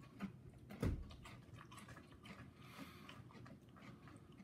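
Quiet chewing of crunchy cereal, with scattered small clicks of a spoon in a paper cup and one dull thump about a second in.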